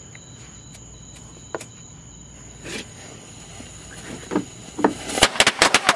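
Firecrackers going off inside a pickup truck's cab: a few scattered pops and crackles, then a rapid, loud string of sharp bangs from about five seconds in. Crickets chirp steadily underneath.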